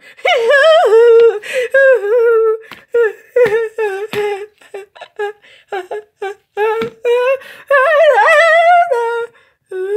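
A child's high voice singing and humming wordless sing-song phrases, the pitch sliding up and down in short bursts, with a longer rising phrase near the end.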